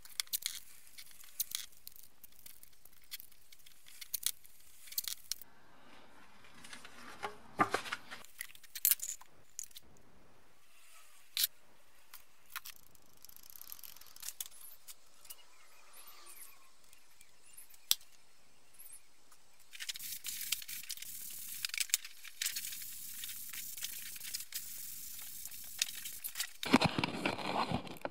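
Masking tape being pulled, torn and pressed onto a metal bearing housing: a run of crinkles and small ticks. From about twenty seconds in, an air spray gun hisses as primer is sprayed, loudest near the end.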